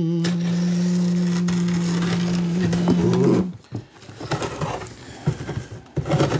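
A loud, steady low hum held for about three and a half seconds, then crackling and scraping as a knife slits the packing tape along a cardboard box.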